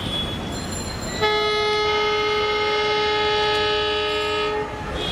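A horn blowing one long, steady, unwavering blast of about three and a half seconds over a continuous rumble.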